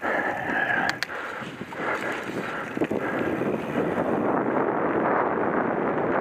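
Mountain bike rolling along a sandy dirt forest trail: steady tyre noise and rattling of the bike, with two sharp clicks about a second in.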